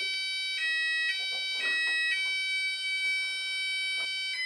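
Texecom Premier Elite alarm system sounding its electronic arming tone as it sets in part-set mode. The tone is continuous and steady. It switches pitch back and forth a few times about half a second apart in the first couple of seconds, holds steady, and changes to a different tone near the end.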